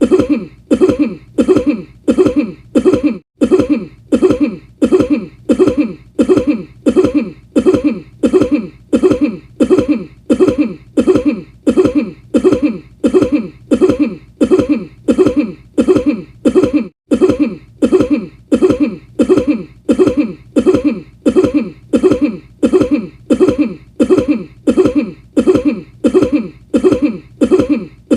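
A person coughing over and over: the same short cough repeated at a strictly even pace, about three coughs every two seconds, like one cough recording looped.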